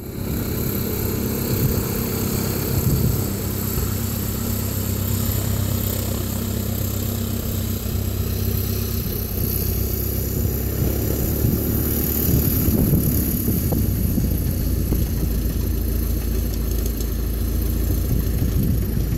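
Single-engine high-wing light airplane taxiing at low power, its piston engine and propeller running steadily.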